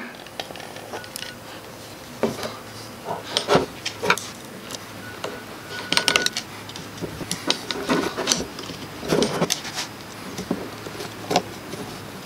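Hand reassembly of an angle grinder: irregular small clicks, taps and rubbing of metal and plastic parts as the armature and gear head are fitted into the housing and the gear-head screws are driven with a screwdriver.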